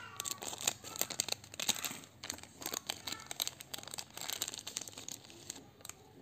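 Plastic candy wrapper crinkling and crackling as it is handled and torn open and a gummy strip is pulled out: a dense run of sharp crackles that thins out near the end.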